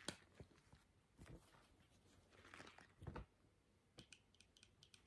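Pink rubber dishwashing glove pulled off a hand close to the microphone, giving rubbery rustling and crackling with a soft thump about three seconds in. Near the end comes a quick run of light taps.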